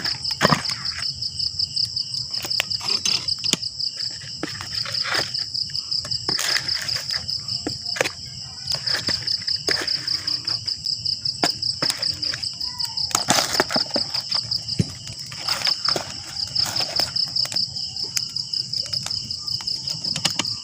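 Insects trilling in a steady, high, fast-pulsing drone, with scattered sharp clicks and knocks throughout.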